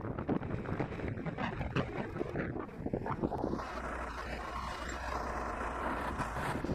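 Wind buffeting the microphone of a camera moving along a city street, with road traffic. From about halfway, a steady low drone, from the engine of a double-decker bus close ahead.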